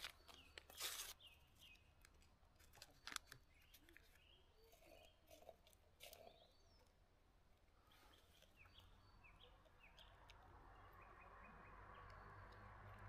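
Near silence with faint short bird chirps, a few sharp clicks in the first few seconds and one more about six seconds in, and a faint rushing noise that grows over the last few seconds.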